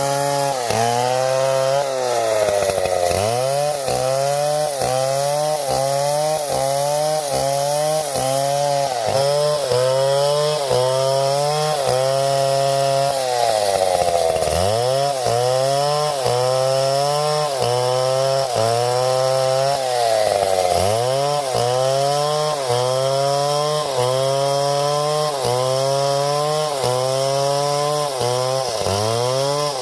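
Two-stroke chainsaw running loud, its engine pitch rising and falling about once a second, with a few deeper drops in revs.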